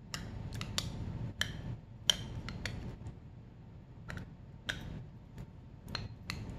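About a dozen irregular light clicks and knocks of a spoon scraping and tapping a plastic measuring cup as thick corn syrup is worked out of it, the sharpest about two seconds in, over a steady low room hum.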